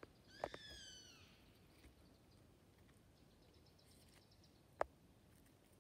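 A bird calls once, about half a second in: a short call that falls in pitch. Faint high chirps follow, then a single sharp click near the end.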